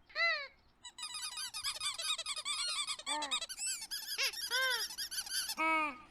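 Squeaky chirping voices of cartoon birds: one call at the start, then a dense chatter of many short overlapping chirps, and a lower call near the end.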